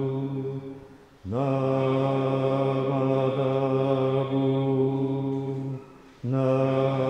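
A single male voice chanting a Jodo Shinshu Buddhist liturgy in long, held tones on a steady low pitch. It breaks twice for breath, about a second in and near the end, and the phrase after the first breath starts with a short upward slide.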